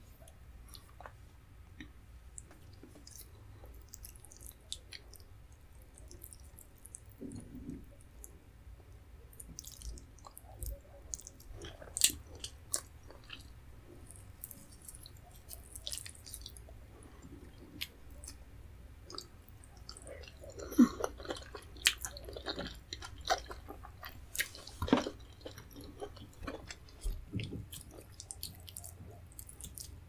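Close-miked eating sounds as leafy vegetable soup is eaten by hand: wet squishes of fingers in the greens, mouth clicks and chewing. They come as scattered short sounds, busiest and loudest about two-thirds of the way through.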